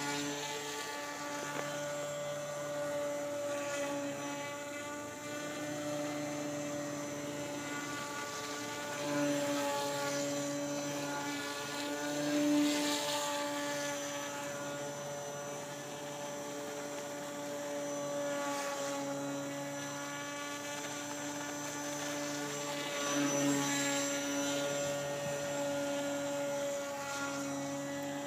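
Radio-controlled model airboat's motor and air propeller running at a steady pitch with a constant whine, swelling louder a few times.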